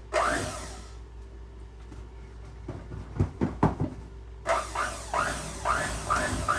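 Thick cream-cheese and powdered-sugar frosting being beaten by hand with a utensil in a mixing bowl, in rhythmic strokes about two and a half a second. The strokes stop for a few seconds, with a few knocks, then start again about four and a half seconds in.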